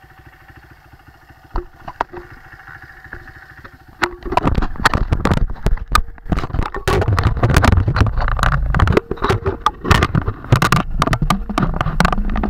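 Dirt bike engine running quietly at low throttle, then opening up loudly about four seconds in and pulling hard. Frequent knocks and rattles come through the handlebar-mounted camera.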